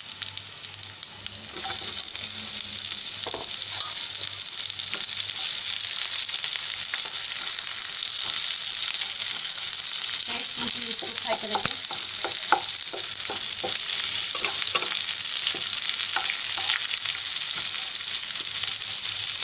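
Sliced onions sizzling in hot oil with dried red chillies and garlic in a non-stick kadai. The sizzle jumps louder about a second and a half in as the onions hit the oil, then holds steady. Through the latter half a wooden spatula knocks and scrapes against the pan as the onions are stirred.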